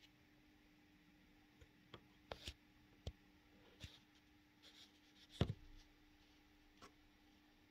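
Near silence: quiet room tone with a faint steady hum and about nine soft, scattered clicks and knocks at uneven intervals. The loudest knock comes about five and a half seconds in.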